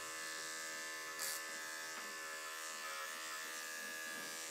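Corded electric dog clipper with a 10 blade, running steadily as it shaves a cocker spaniel's coat, with a short hiss about a second in.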